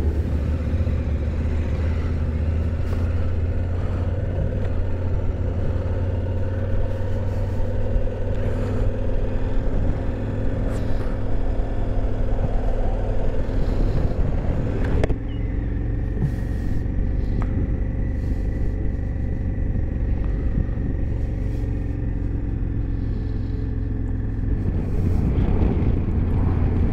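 Steady engine rumble with wind on the microphone: first a car ferry's engines underway, then, after a sudden change about halfway through, a KTM adventure motorcycle riding along at road speed.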